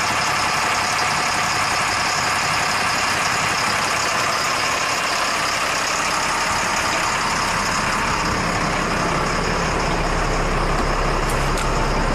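The Caterpillar 3116 six-cylinder turbo diesel of a 1996 Stewart & Stevenson M1078 LMTV army truck idling steadily. Its low rumble grows stronger about eight seconds in.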